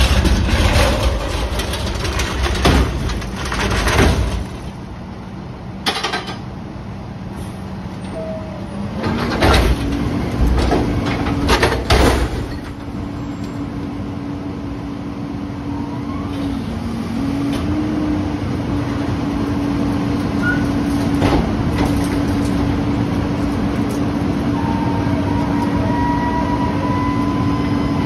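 Heil rear-loader garbage truck dumping a steel commercial dumpster: several metal clanks and bangs as the bin is handled, then about nine seconds in the engine speeds up to drive the hydraulics and runs at a steady, higher pitch while the dumpster is lifted and held tipped over the hopper.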